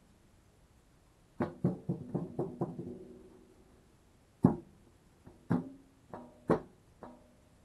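A large metal tin being kicked across the floor, each kick giving a sharp clang with a short ringing tone. A quick run of about six hits comes a second and a half in, then four single hits spread out, the first of them the loudest.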